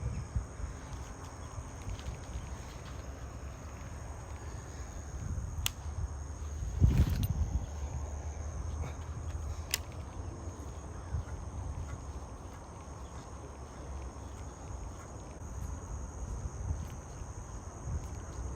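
Insects droning steadily at a high pitch over an uneven low rumble, with a louder thump about seven seconds in and a couple of sharp clicks.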